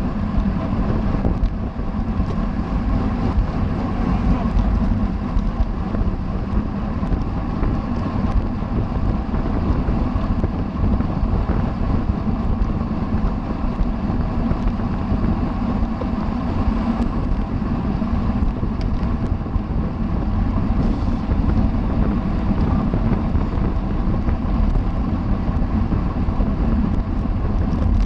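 Wind rushing over the microphone of a camera riding along at racing speed on a bicycle, a steady low rumble that never lets up.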